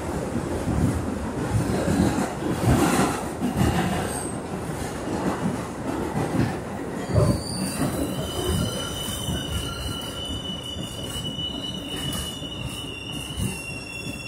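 R62A subway car running, heard from inside: wheels rumbling and clacking over the rails. About halfway in, a steady high-pitched wheel squeal sets in and holds.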